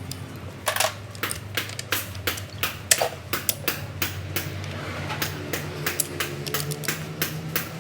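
Hand tools clicking and knocking on metal gearbox parts: irregular sharp metallic taps, a few ringing briefly, about two or three a second, over a steady low hum.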